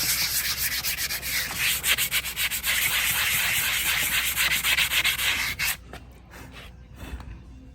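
Steady abrasive scraping on a horse's hoof, with rapid rough strokes, stopping suddenly about five and a half seconds in.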